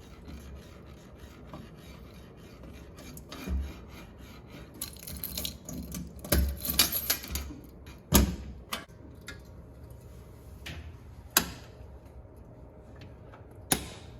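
Hands working at a breaker panel to reset a tripped Federal breaker: rubbing and scraping with scattered small clicks, and a few sharp snaps, the loudest about eight seconds in and others near eleven and fourteen seconds.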